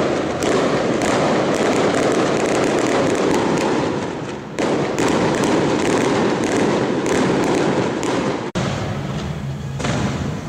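Fireworks going off in a dense run of crackles and bangs, easing briefly about halfway through. The crackling breaks off sharply about eight and a half seconds in.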